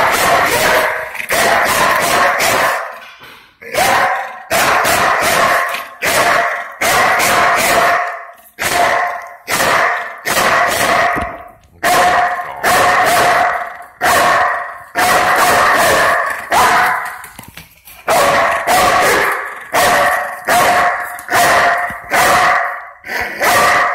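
Belgian Malinois barking loudly over and over, one to two barks a second in quick runs with short gaps: a watchdog's alert barking at someone sneaking up.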